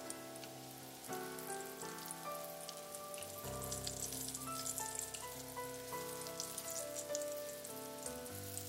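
Cornstarch-coated eggplant pieces shallow-frying in hot oil in a wok: a steady crackling sizzle with many small pops. Soft background music with held notes plays under it.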